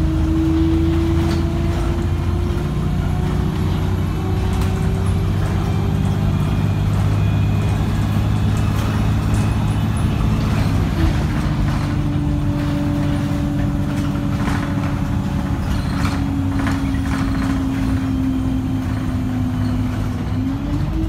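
A KMB bus running on the road: a steady low engine drone with a whine that slowly rises, drops about eleven seconds in, and climbs again near the end. Scattered light clicks and rattles run through it.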